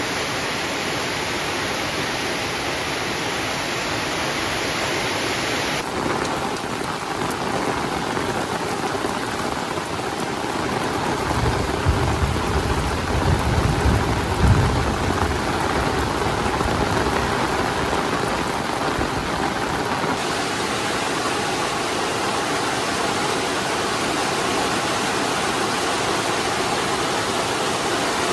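Heavy rain falling steadily, with a low rumble of thunder lasting a few seconds about halfway through.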